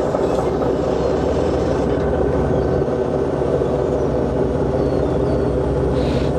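Purse seiner's diesel engines running with a steady, even drone.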